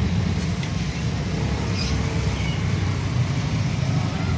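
Steady low rumble of motor vehicle engines running in the background.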